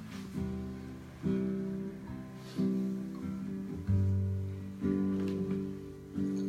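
Acoustic guitar strumming slow chords, a new chord struck about every second and a quarter and left to ring out before the next.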